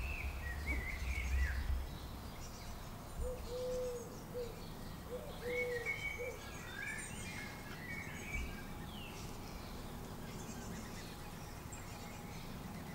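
Outdoor garden ambience with several small birds chirping and calling in short, scattered phrases. A few low, arching notes come around three and five seconds in, and a low rumble sits under the first two seconds.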